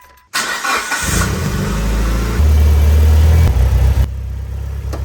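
2003 Mitsubishi Lancer Evolution's turbocharged 2.0 L four-cylinder engine starting: a short burst of cranking about half a second in, then it catches. It runs louder for about a second and then settles to a steady idle.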